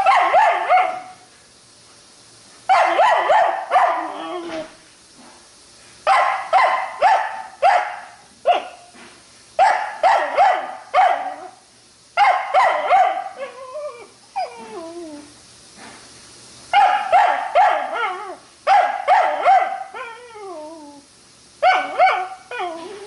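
Puppy shut in a kennel yelping and barking in quick bouts every couple of seconds, several bouts trailing off into falling whines.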